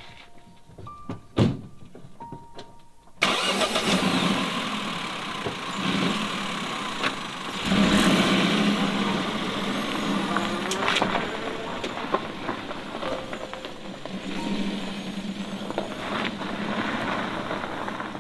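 Peugeot Partner van: a door shuts with a single thunk about a second and a half in, then the engine starts suddenly about three seconds in and keeps running as the van pulls away over a dirt track.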